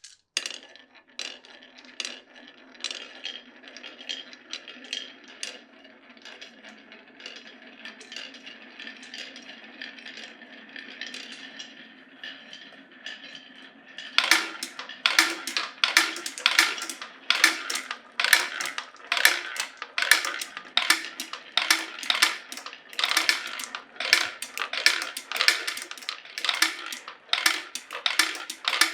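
Glass marbles rolling down a wooden marble run. At first there is a steady rolling rumble with scattered clicks. About halfway through it turns into a louder, dense stream of sharp clacks, several a second.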